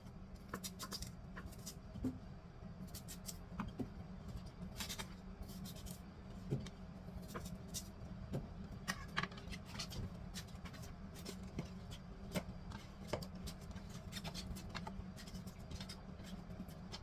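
Irregular small clicks, taps and scrapes of fruit and leaves being cut up by hand, over a steady low hum.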